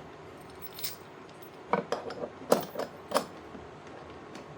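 Small metal tools being handled and set in place, giving several sharp metallic clinks and knocks. The loudest come about two, two and a half and three seconds in.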